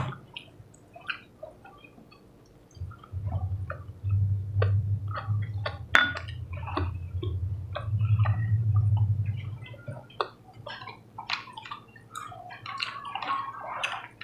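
Close-up wet chewing and lip-smacking of people eating roast chicken and rice with their fingers, with many small clicks and ticks of fingers and a fork on plates. A low steady hum runs from about three to ten seconds in.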